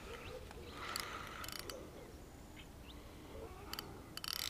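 Fixed-spool fishing reel clicking faintly in short bursts as a hooked carp is played on a loosely set clutch.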